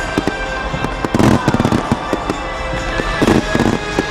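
A fireworks display going off in rapid bangs and crackles, heaviest about a second in and again around three seconds in, with a few whistling glides. Music plays underneath.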